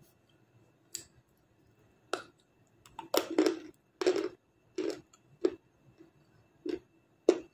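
Close-up crunchy chewing of a hard, white, earthy-tasting Black Star slab: a string of separate crisp crunches, closest together and loudest around three to four seconds in.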